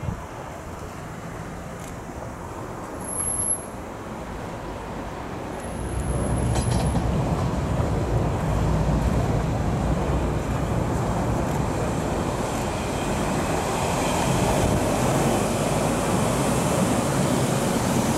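London Underground S Stock train approaching and passing close below, its running noise on the rails swelling about six seconds in and staying loud as the carriages go by.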